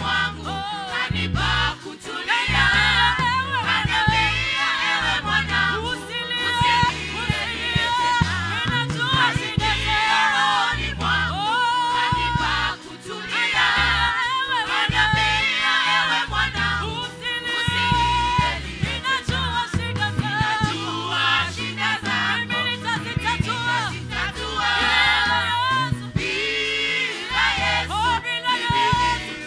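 Choir singing a gospel worship song over instrumental accompaniment with a steady bass line.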